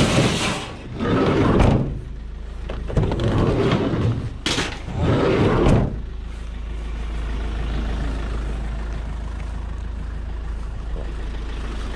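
Several loud clattering bangs and scrapes from scrap being handled, then a steady low rumble from a vehicle engine running.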